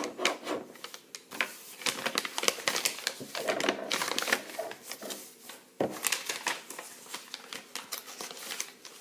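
Pen scratching on folded paper while writing a word, pressed hard, with light paper rustling and an irregular patter of short scratches and taps.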